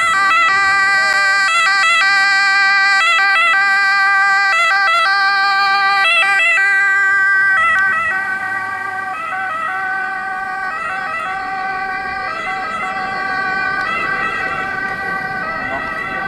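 Ambulance siren sounding continuously, loud at first and somewhat quieter from about eight seconds in.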